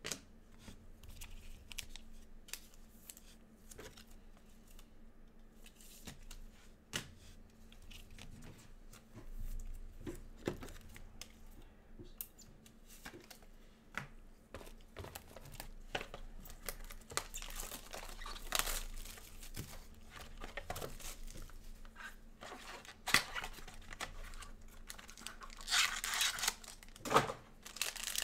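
Plastic trading-card pack wrapper being torn open and crinkled, with scattered light clicks and taps of cards and packs being handled. One short burst of crinkling comes a little past the middle, and a longer, louder run of tearing and crinkling comes near the end.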